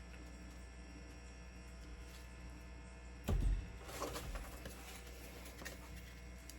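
A dull bump about three seconds in, followed by about a second of crackly rustling, as dry corn husks are handled, over a steady electrical hum.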